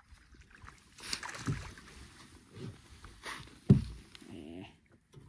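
A hooked crappie splashing at the surface and being swung out of the water into the boat, with handling noise and several dull knocks. The loudest knock comes just under four seconds in.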